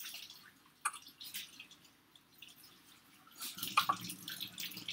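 Faint scattered clicks and ticks. A low hum comes in about three and a half seconds in, with the clicking growing denser.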